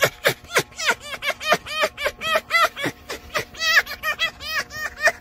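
Red fox cackling while its belly is rubbed: a fast run of short, high-pitched calls, about three or four a second, that sound like laughing.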